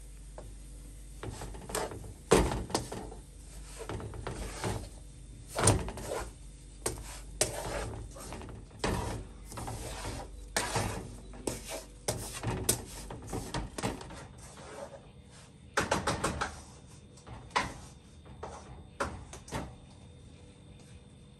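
Wooden spatula stirring and scraping a dry, crumbly halva mixture in a nonstick pan, in irregular strokes with sharp knocks against the pan.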